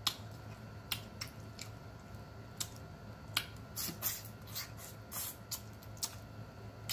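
Close-up eating sounds: irregular wet lip smacks and sucking clicks, about a dozen, from a man sucking crawfish-boil seasoning off his fingers and handling boiled crawfish.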